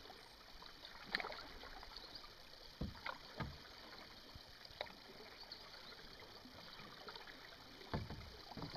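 Canoe paddling on calm water: faint water swishes and drips with scattered light knocks and a few short low thumps.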